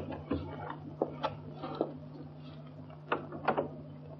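A few light, irregularly spaced knocks and clicks over the steady low hum of an early-1930s film soundtrack.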